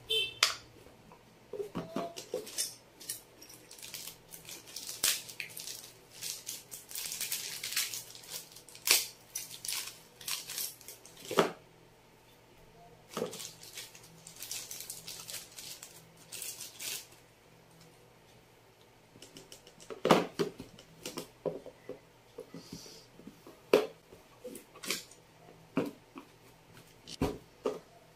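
Irregular clicks, taps and plastic crinkling as a Bosch GST 700 jigsaw and its parts are handled: the clear chip guard snapped onto the saw, a blade unwrapped from its plastic bag and pushed into the blade clamp. The saw's motor is not running.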